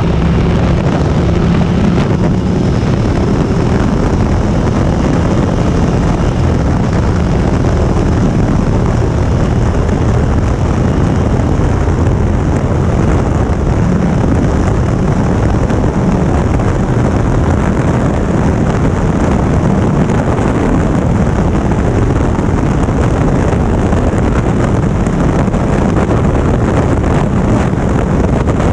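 Motorcycle engine running at a steady cruise under heavy wind rush over the microphone.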